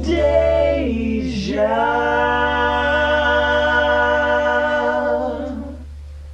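Unaccompanied vocal group singing in close harmony: the voices move through the last words of the line, then hold one chord steadily for about four seconds before it fades out.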